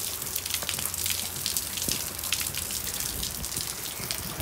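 Rain falling on a wet concrete driveway: a steady hiss with many single drops ticking close by.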